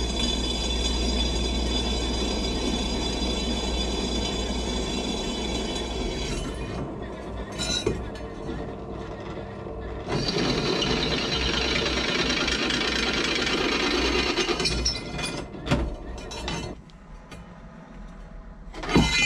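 Benchtop drill press running and drilling holes through the thin steel wall of a gas turbine's flame tube, in two stretches with a pause of a few seconds between them. Near the end, clinks and knocks as the metal tube is turned and handled.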